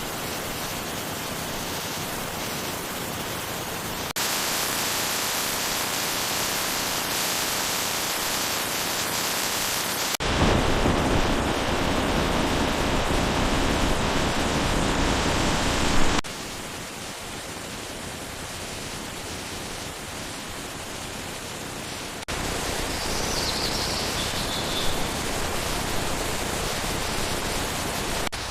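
Waterfalls rushing, a steady roar of falling water. It changes abruptly in level and tone about every six seconds as it cuts from one waterfall to the next, loudest and deepest about ten seconds in.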